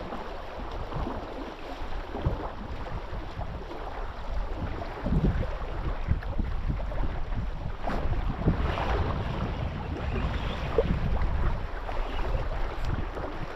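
Wind buffeting the microphone over water lapping against a small boat's hull, with a few light knocks.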